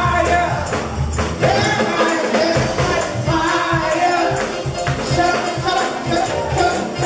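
Live gospel praise music: a woman's voice through a microphone over a steady tambourine beat.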